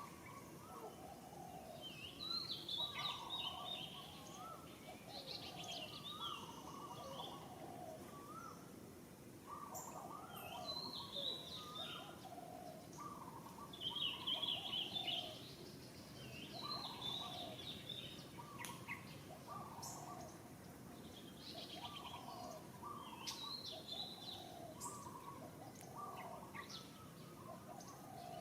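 Several wild birds calling: a steady run of short, lower notes about twice a second, with bursts of higher chirping every few seconds over a faint outdoor background.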